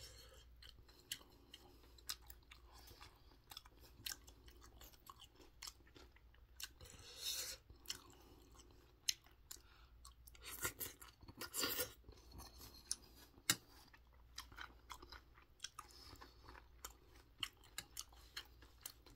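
A person chewing a mouthful of mixed rice, with a metal spoon clicking and scraping against a metal bowl as he scoops. Faint overall, with many short sharp clicks and a few louder noisy stretches about halfway through.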